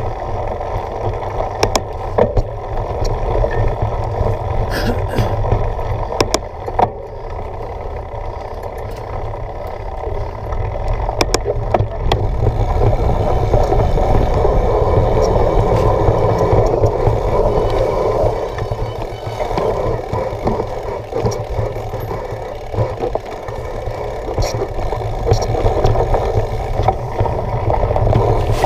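Steady rushing noise of a mountain bike rolling fast along a dirt forest trail, heard from a camera carried on the ride, with scattered clicks and rattles from bumps. It is loudest for a few seconds in the middle.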